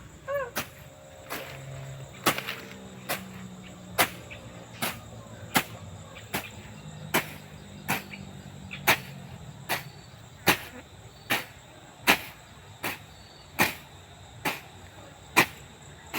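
Wood being chopped with steady, evenly paced blows, about one sharp strike every 0.8 seconds, some twenty in all. A short bird call is heard near the start.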